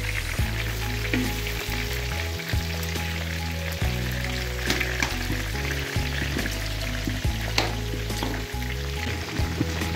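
Pork pieces sizzling steadily as they fry in their own rendered fat in a large metal wok, the fat being rendered out of the pork. A few sharp clicks and scrapes come from a slotted metal spoon stirring them against the pan.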